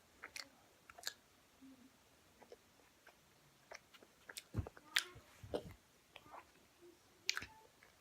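Mouth sounds of chewing Fini padel balls, a filled bubble-gum candy: scattered wet smacks and clicks.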